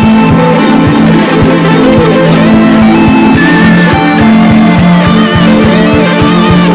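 Instrumental worship music at a steady loud level: held chords and a wavering melody line over a steady, regular beat.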